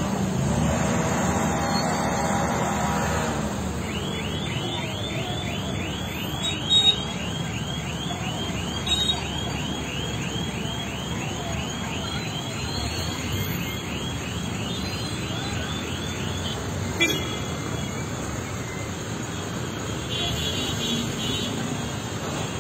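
Road traffic noise: a steady wash of vehicles, with a sustained horn-like pitched tone for the first three seconds or so. From about four seconds in until about sixteen, a rapid high chirp repeats about two or three times a second, and a few short knocks stand out.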